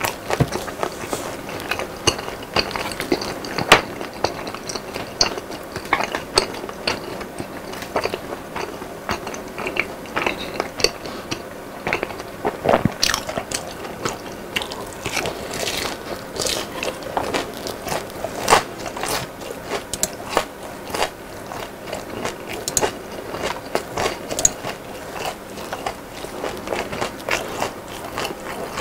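Close-miked chewing of crispy boneless fried chicken: irregular crunches several times a second, the sharpest about four seconds in and again near thirteen seconds.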